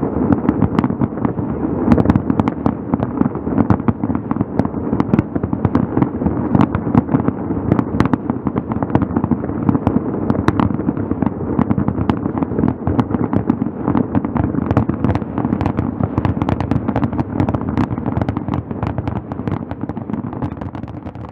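Fireworks display at its finale: a dense, continuous barrage of bangs and crackling over a steady rumble, fading out near the end.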